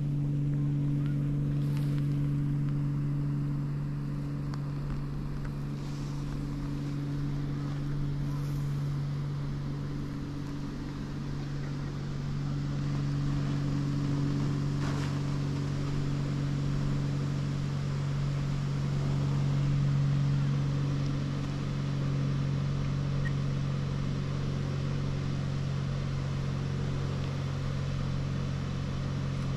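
Steady engine hum at a constant pitch, rising and falling a little in loudness.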